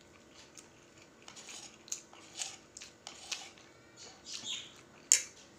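Metal spoon clinking and scraping against a plate of fried noodles while eating, in short scattered strokes, with one sharp clink a little past five seconds in.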